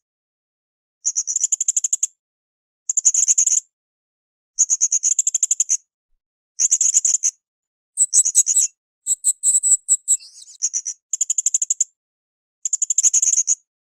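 Blue-crowned hanging parrot (srindit) calling: short, high, rapidly pulsed trills, each about a second long, repeated every couple of seconds with silence between. About midway there is a higher, more varied chattering run.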